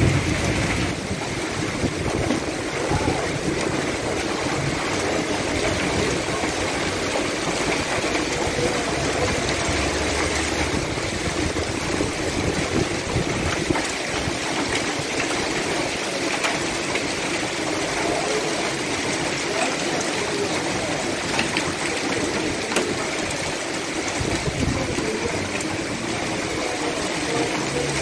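Hail mixed with rain pelting the paving, steps and parked cars: a steady, dense hiss of many small impacts.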